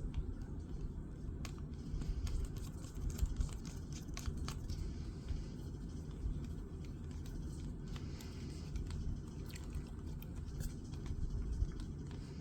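Scattered small clicks and light scrapes from the parts of a Nitecore P18 flashlight being handled and fitted back together, over a steady low hum.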